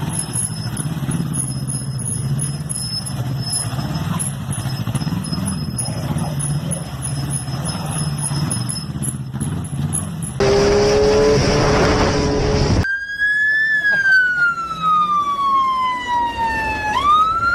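Motorcycle engine running steadily at low revs while the bike is held on its back wheel. About ten seconds in there is a loud noisy burst for a couple of seconds, then a siren-like wail that slides slowly down in pitch and swoops back up near the end.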